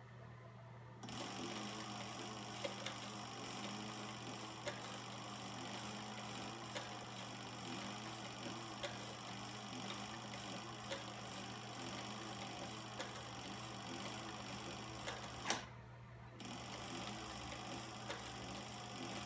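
Cobra Class 3 heavy-duty leather sewing machine stitching, over a steady electrical hum. It starts about a second in, stops with a sharp click about fifteen seconds in, and starts stitching again a second later.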